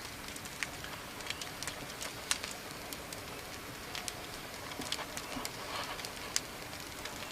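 Campfire crackling: irregular sharp pops and snaps over a steady hiss, from freshly added branches that are not fully dry after rain.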